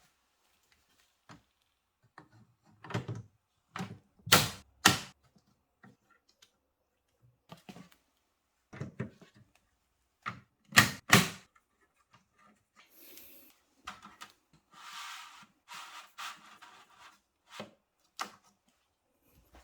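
Clicks and knocks of parts being handled and fitted into a small-form-factor PC case, with two sharp double knocks and a few seconds of scraping and rustling near the middle.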